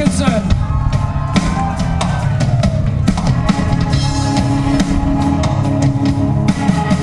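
Live rock band playing loud: a drum kit with kick and snare hits out front, over bass guitar and electric guitar. Held notes come in about three seconds in.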